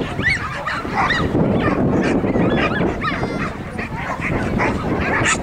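Several dogs barking and yapping in quick, overlapping high-pitched calls, over a steady low background noise.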